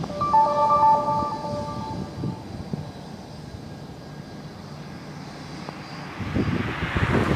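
Boeing 737 jet engines during a takeoff: a steady low rumble with a brief high engine whine in the first two seconds, swelling louder near the end.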